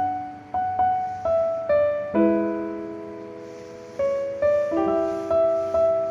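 Background piano music: single notes struck and fading over a held chord, in a slow, gentle melody.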